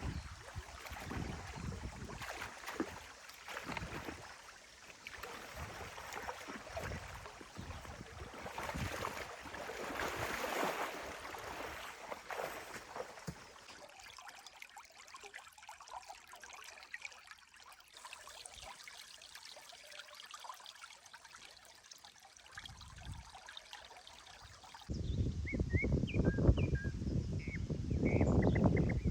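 Stream water trickling and gurgling through a breach in a beaver dam. Near the end a much louder low rush sets in, with a few short high chirps over it.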